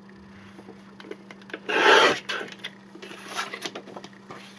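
Paper being cut: one loud rasping stroke about two seconds in, followed by softer scraping and rustling of the paper.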